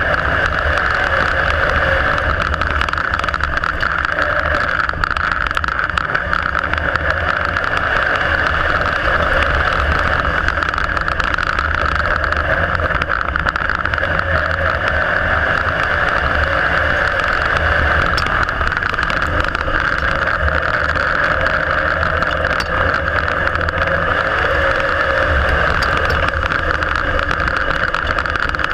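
IMCA Modified dirt-track race car's V8 engine running hard at racing speed, heard from inside the cockpit as a loud, steady drone with little change in pitch.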